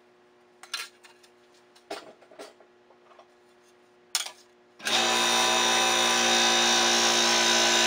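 A few light clinks of the steel die plates being handled, then about five seconds in the press's electric motor starts and runs steadily with a hum and whine, powering the press to run a blanking die.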